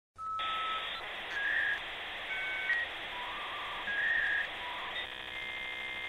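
Electronic intro sound effect: a single beep, then a run of short beeps at changing pitches over a steady hiss, ending in a buzzy chord of even tones.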